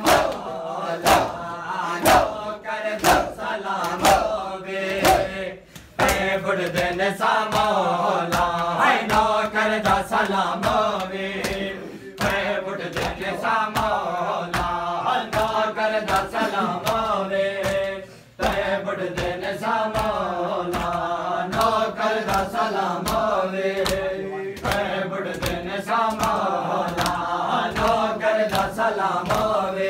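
Group of men chanting a Punjabi nauha (mourning lament) together, with a steady beat of strikes in time, the hand-on-chest blows of matam. The chanting and beating break off briefly a few times.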